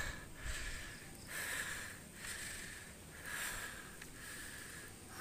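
A person breathing hard while climbing stone steps, about one breath a second.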